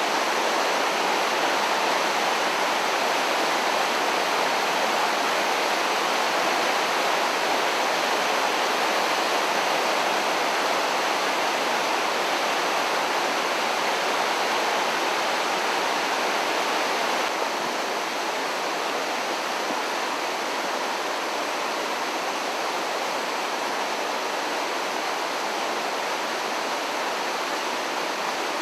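Fish Creek in flood, the floodwater rushing in a steady, even noise with no let-up. It drops slightly in level a little past halfway.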